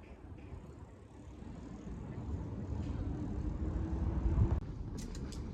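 Low rumble of a passing vehicle with a faint steady hum, building and then cutting off abruptly; a few sharp clicks follow near the end.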